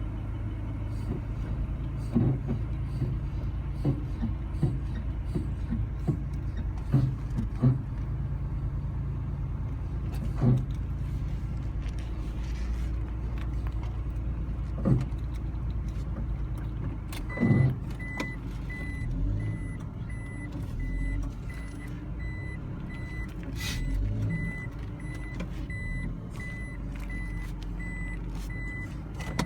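Suzuki Carry kei truck engine running steadily, with several sharp knocks over its first half. From a little past halfway, a high electronic beep repeats in short, even pulses.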